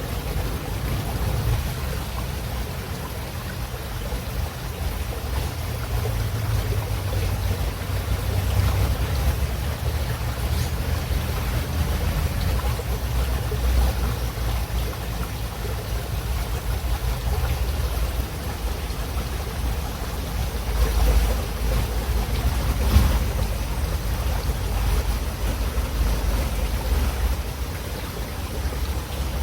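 River water running steadily, with a deep low rumble under an even rushing hiss; it swells briefly a couple of times about two-thirds of the way through.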